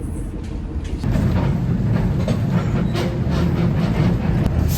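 Trolley running on its rails: a steady low rumble with light clatter, growing louder about a second in.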